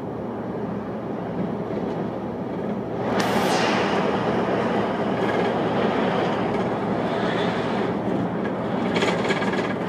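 Volvo B7TL double-decker bus with its 7.3-litre diesel cruising at motorway speed, heard from inside: a steady engine drone under road and wind noise that swells louder about three seconds in.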